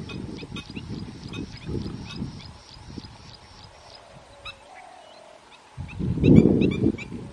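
Garganey ducks feeding on the water: rough, uneven splashing and dabbling sounds, fading in the middle and loudest about six seconds in, under a fast series of short, dry clicking calls.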